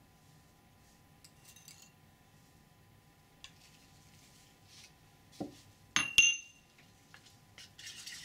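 Porcelain mortar and pestle and ceramic bowls handled on a bench: a dull knock about five seconds in, then two sharp ringing clinks of ceramic on ceramic a moment apart. Near the end a rough scraping starts as pigment paste is worked with a spatula.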